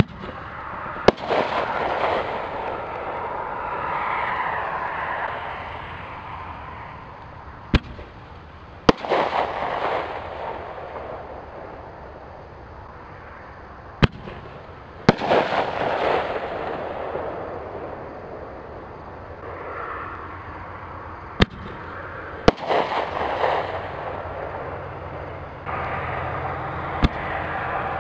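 Reloadable artillery shells firing from a mortar tube. Each sharp launch bang is followed about a second later by the shell's burst and a few seconds of crackling as the effect falls. It repeats several times, a few seconds apart.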